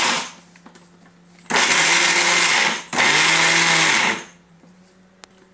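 Electric mixer grinder dry-grinding roasted sesame seeds and jaggery in its steel jar, run in short pulses. One burst stops just after the start, then two more follow back to back from about one and a half to about four seconds in.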